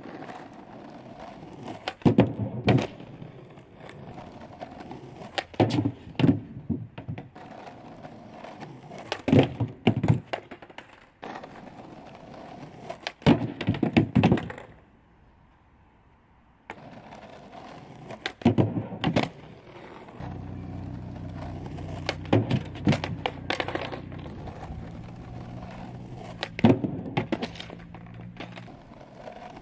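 Skateboard rolling, with sharp clacks and thuds in groups every few seconds as the board is ollied onto a DIY manual pad, tail and wheels knocking, and lands back down.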